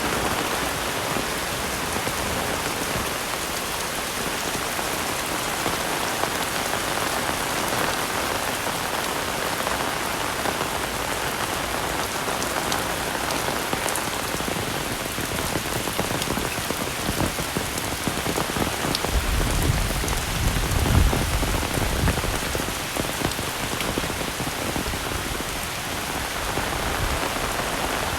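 Heavy rain falling steadily, an even hiss of drops on surfaces. About two-thirds of the way through, a low rumble swells for a couple of seconds and then fades.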